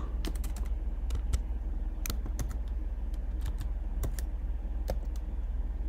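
Computer keyboard keystrokes: a file name being typed, irregular key clicks a few a second, over a steady low hum.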